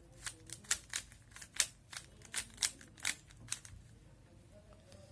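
Plastic Rubik's cube being turned by hand: a quick, irregular run of clicks as the layers snap round, stopping about three and a half seconds in.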